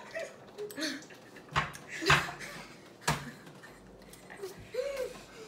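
A boy coughing and blowing out sharply three times, with small vocal noises and a short hum near the end, after a mouthful of dry ground cinnamon.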